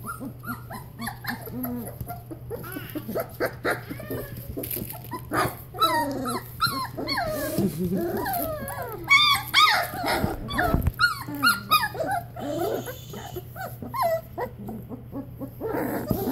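A litter of three-week-old Goldendoodle puppies whining and yipping, with many short, high-pitched cries that slide up and down and overlap one another.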